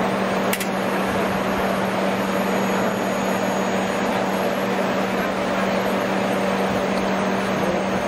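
Central air conditioner's outdoor condenser unit running: the condenser fan blowing steadily, with a steady hum under it and a single light click about half a second in. The fan is running normally again after its capacitor was replaced.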